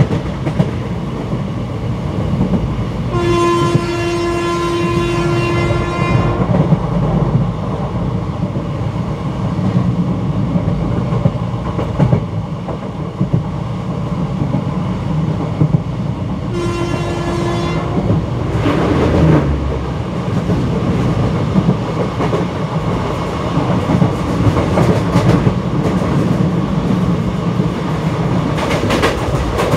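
ICF passenger coach running over the track, with a steady rumble and clickety-clack of the wheels over rail joints. The WCAM2 locomotive's horn sounds twice: a long blast about three seconds in, and a shorter one a little past halfway.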